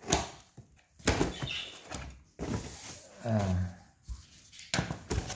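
Cardboard shipping box being opened by hand: packing tape torn and cardboard flaps pulled and scraped open in a series of short rasps. A brief low tone sounds about three seconds in.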